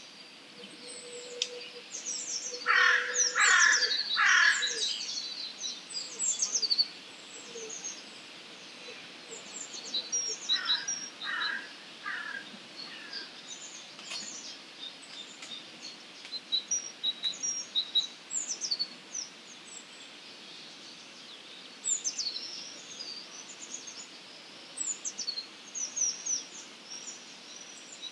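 Dawn chorus of wild songbirds, with quick high chirps and twitters throughout. A crow caws three times loudly a few seconds in, and three fainter caws follow about ten seconds in.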